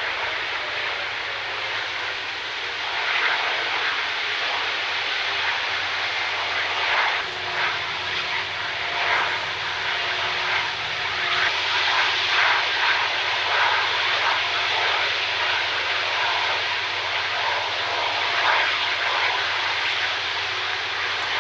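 Airbus A330 jet engine running on the ground during an engine test after years in storage: a continuous rushing noise that wavers slightly in loudness, with a few faint steady tones in it.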